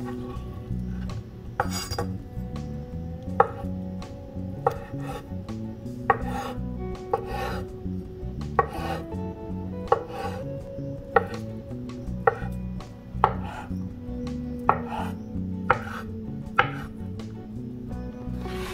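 Kitchen knife slicing crab sticks and knocking on a bamboo cutting board, about one cut a second, over soft background music.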